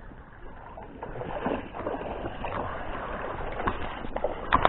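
Water splashing and sloshing as a hooked salmon is played and brought in to be landed, with a sharp knock near the end.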